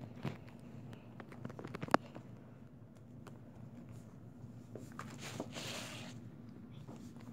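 Quiet scratching of a coloured pencil shading on paper, with small taps and clicks from handling and one sharp click about two seconds in, over a steady low hum.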